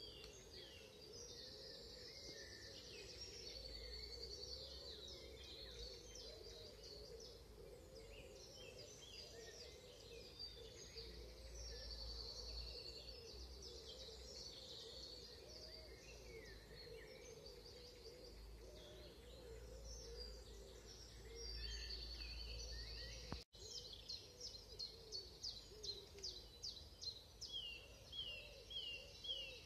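Dawn chorus: many songbirds singing at once, faint, over a low steady rumble. Near the end, after a brief cut-out, a run of quick repeated high notes of about three or four a second takes over.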